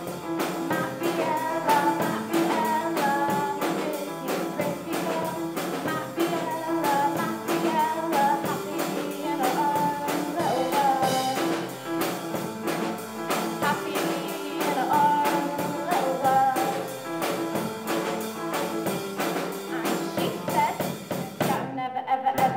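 A young female vocalist sings live into a microphone, accompanied by an upright piano and a drum kit keeping a steady beat.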